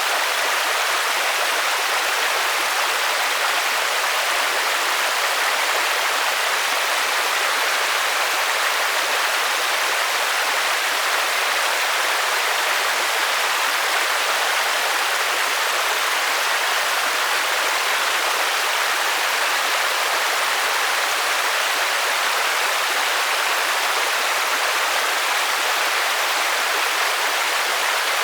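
Steady rainfall: a continuous, even hiss, mostly high in pitch with little low end and no individual drops or other events standing out.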